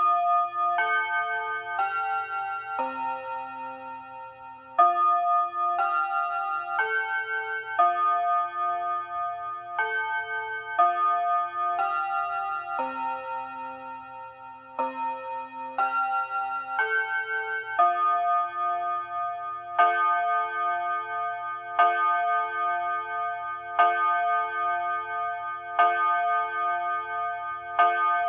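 Dual-chime clock playing its chime melody, about one note a second. About two-thirds through it changes to the same chord struck about every two seconds as it strikes the hour.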